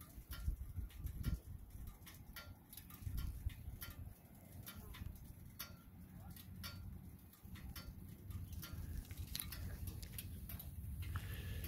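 Irregular light ticks and clicks, several a second at times, over an uneven low rumble of wind on the microphone.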